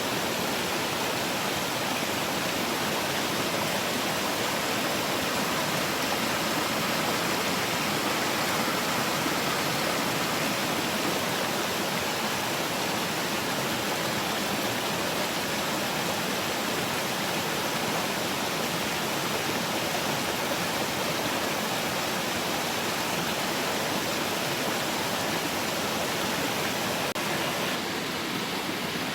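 Mountain valley stream rushing steadily, an even, unbroken wash of water noise that dips slightly and changes a little near the end.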